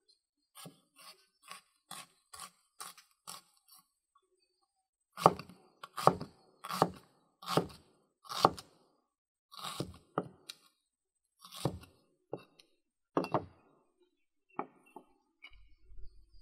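Large wide-bladed knife chopping red onion on a round wooden board. A run of light, quick chops comes first, about two a second, then heavier, louder chops about one a second. Near the end there is a little soft handling of the chopped pieces.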